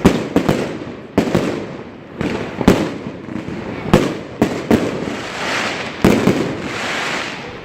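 New Year's fireworks and firecrackers going off: many irregular sharp bangs, some echoing, with a longer crackling hiss near the end.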